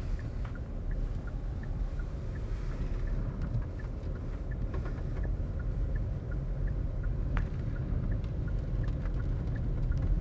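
Low, steady rumble of a car driving, heard from inside the cabin, with faint scattered light ticks.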